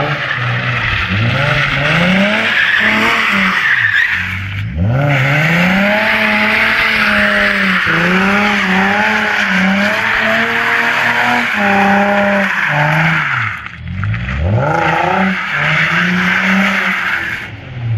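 Nissan 350Z's V6 revving up and down repeatedly while its rear tyres squeal and smoke in a burnout and donuts. The squeal drops out briefly twice, about 5 and 14 seconds in.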